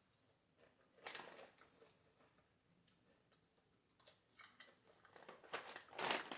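Potato chips being bitten and chewed: a few faint, short crunches, one about a second in and a louder cluster near the end.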